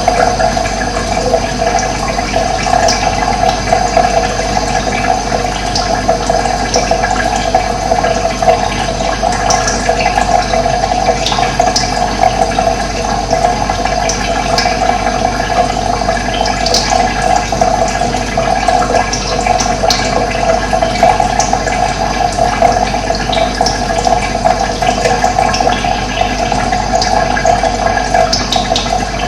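Steady rush of running water, with brief faint bird chirps now and then.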